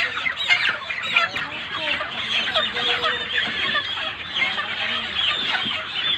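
A flock of broiler chickens calling, a dense, continuous chorus of many overlapping short high chirps and clucks.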